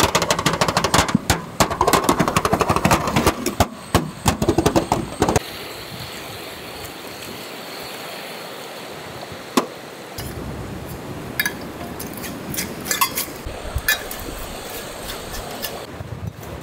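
Glass jars clinking and knocking against one another and a metal tray as they are handled and packed with seafood masala: a dense run of clinks for the first five seconds or so. After that comes a steady background rush with a few scattered clinks.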